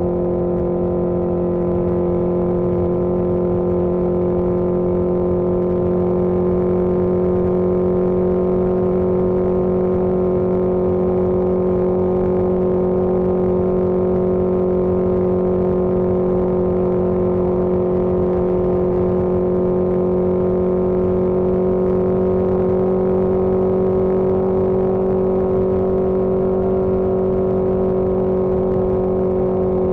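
1981 Yamaha XJ650 Maxim's air-cooled inline-four engine running at a steady speed, holding one constant engine note.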